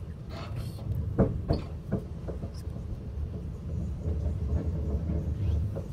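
Steady low rumble of a moving passenger vehicle heard from inside the cabin, with a few sharp knocks and rattles about a second in.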